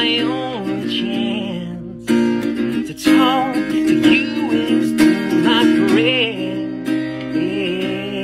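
A man singing a slow ballad with vibrato, accompanying himself on a strummed acoustic guitar.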